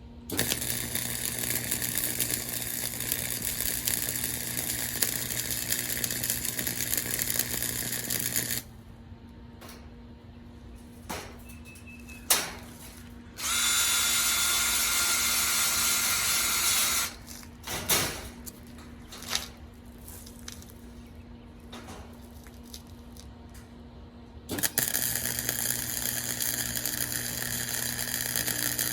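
Welder running in three steady runs: a long one of about eight seconds, a shorter one of about three and a half seconds mid-way, and another starting about four seconds before the end, with a few sharp clicks in between.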